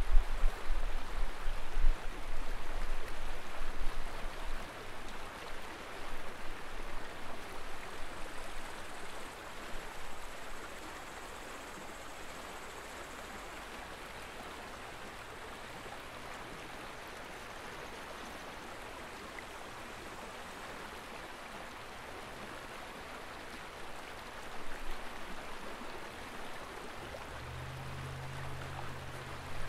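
Steady rushing of river water, with a louder low rumble in the first few seconds and a low steady hum coming in near the end.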